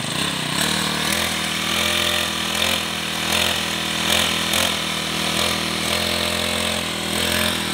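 Small four-stroke backpack brush cutter engine running, its pitch stepping up and down several times as the throttle on the handle is opened and eased. The note is smooth.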